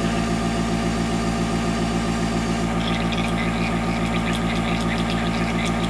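Airbrush compressor running with a steady, pulsing motor hum. From about three seconds in, the hiss of air spraying through the airbrush joins it.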